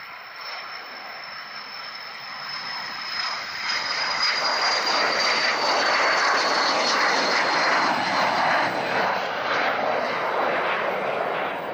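Cessna Citation CJ2 business jet's twin Williams FJ44 turbofans at takeoff power, growing louder over the first few seconds as the jet rolls past and lifts off, then holding loud as it climbs away. A high fan whine runs over the jet noise and slowly falls in pitch.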